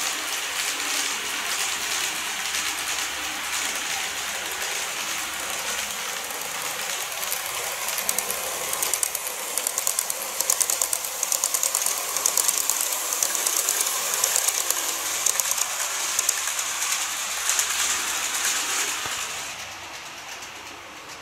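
N-gauge KATO 381 series model train running on a plastic viaduct track: a steady motor and wheel hum grows louder as it approaches. As it passes close, a rapid clicking of wheels over the rail joints sets in for about ten seconds, then the sound drops off near the end.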